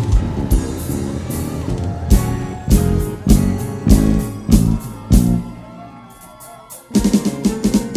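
Band playing an upbeat Afro gospel praise groove, with guitar over a drum kit beat. The music thins and drops away for a moment about six seconds in, then the full band crashes back in near the end.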